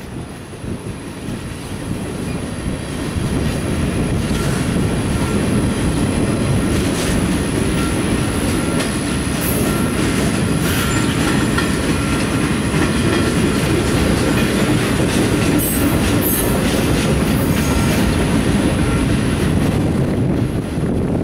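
A passing train's flatcars, loaded with highway trailers, rolling by on the rails: a steady rumble of steel wheels with scattered clicks over the rail joints.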